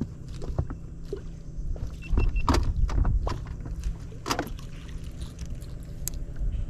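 Knocks and clicks from a small aluminium boat and fishing tackle being handled during a cast and popper retrieve, over a steady low rumble. The loudest cluster of knocks comes about two to three seconds in, with another sharp knock a little after four seconds.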